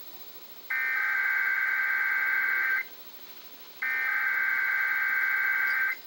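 Emergency Alert System SAME header: two bursts of high, warbling digital data tones, each about two seconds long with about a second of quiet between, played through a TV speaker. The bursts are the coded header for a Severe Thunderstorm Warning.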